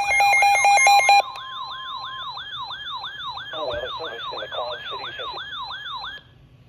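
Electronic siren-style alert tone marking an emergency weather warning. It opens with about a second of stepped electronic beeps, then a fast up-and-down wail of about three sweeps a second that cuts off suddenly about six seconds in.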